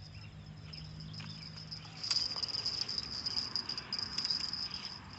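Insects chirring in a steady high-pitched drone. From about two seconds in there is also a louder rustling noise with scattered clicks.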